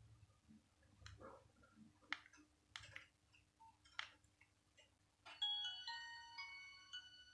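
Keys on a Nokia 1202's keypad clicking several times, then the phone's speaker plays a short beeping melody of stepped pure tones lasting about two seconds.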